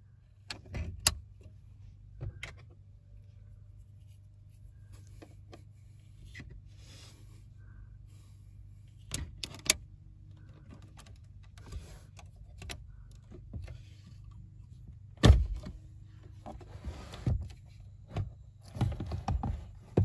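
Metal radio removal keys clicking and rattling in the release slots of a Volkswagen MIB2 Technisat infotainment unit, then the unit's metal housing being worked out of its bay with scattered clicks and knocks. The loudest knock comes about 15 seconds in, with a faint steady low hum underneath.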